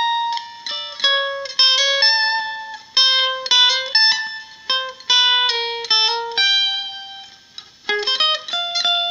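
Ryder EM-55 semi-hollow chambered electric plucked-string instrument played through its magnetic pickup alone: a line of picked single notes and a few chords, each struck sharply and dying away. The tone is really, really tinny.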